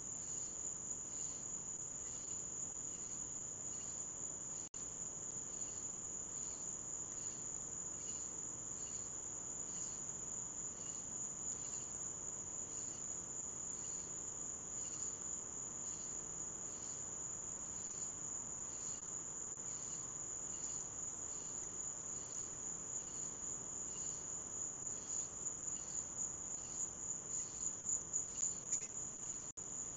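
Crickets chirring: a steady high trill with a second, slower call pulsing about once a second. Near the end a nearer insect swells in louder pulses, and the sound cuts out for an instant twice.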